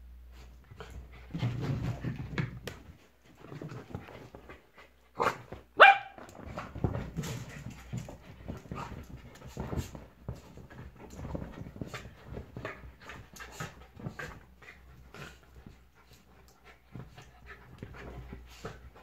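A Shetland sheepdog and a Jack Russell terrier play-fighting, with growling and scuffling. A sharp bark about six seconds in is the loudest moment.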